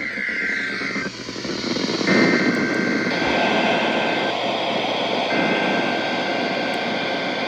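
NOAA Weather Radio SAME header for a Required Weekly Test: three buzzy two-tone digital data bursts, each about two seconds long with a gap of about a second between them, heard over heavy radio static. The first burst ends about a second in and the third runs to the end.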